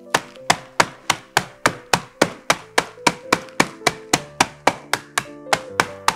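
A wooden rolling pin striking sponge fingers through a plastic zip-lock bag on a wooden board, a fast even run of sharp knocks at about three to four a second, crushing the biscuits into crumbs.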